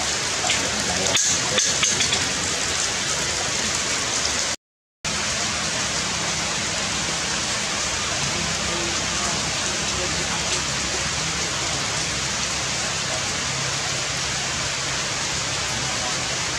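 Steady rain falling on forest leaves, with a few sharper drops ticking in the first two seconds. The sound cuts out completely for about half a second at a cut, about four and a half seconds in, then the rain carries on evenly.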